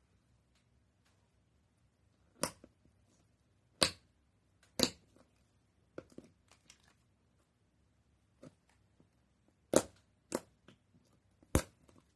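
Pink slime being pressed, poked and stretched by hand, giving off several sharp popping clicks at uneven intervals, with quiet between them.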